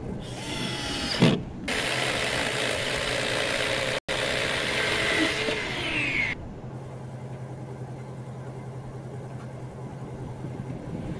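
A power drill whirs briefly and winds down with a falling whine. Then an electric chainsaw cuts through a foam-core structural insulated panel for about five seconds, its pitch rising just before it cuts off abruptly. A steady low hum continues after it.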